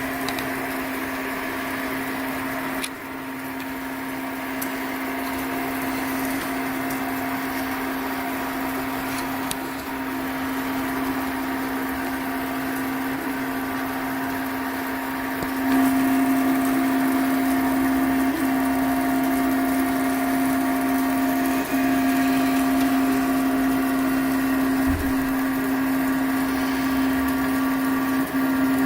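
CoreXY 3D printer running, with a steady whine from its motors that gets louder about halfway through.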